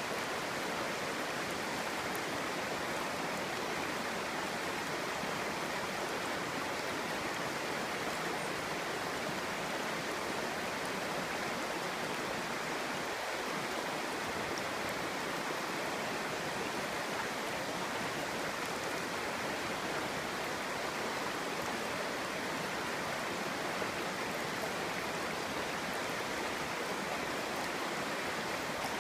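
Clear stream babbling over stones, a steady, even rush of flowing water.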